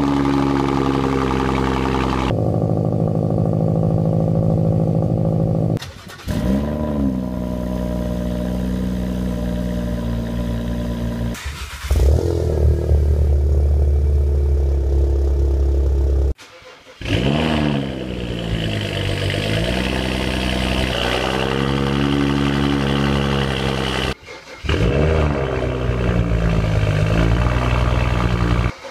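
Car exhausts heard at the tailpipe, one after another with abrupt cuts. Each engine alternates between idling and short revs whose pitch rises and falls, repeated several times in a row. About halfway through, a Volkswagen Golf idles with a deep steady drone.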